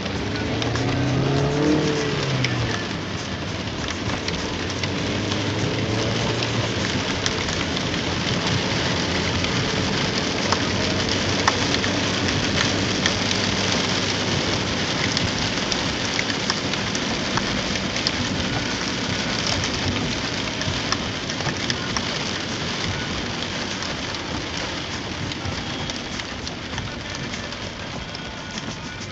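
Heavy rain falling on a car's roof and windshield, heard from inside the car as a dense, steady hiss that is loudest around the middle.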